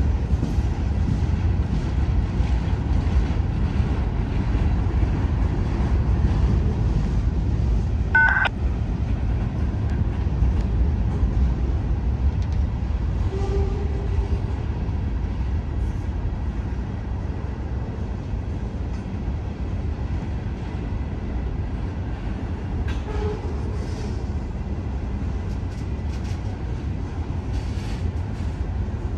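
Long CSX freight train rolling past, a steady low rumble of wheels on rail, with a brief sharp high-pitched note about eight seconds in.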